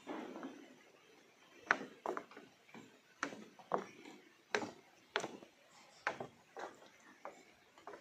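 Footsteps on a wooden boardwalk: a series of sharp knocks, roughly one or two a second, over a faint steady hiss.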